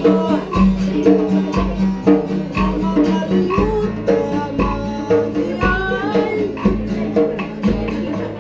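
A man singing to an acoustic guitar, with a tall laced hand drum beating a steady pulse about once a second.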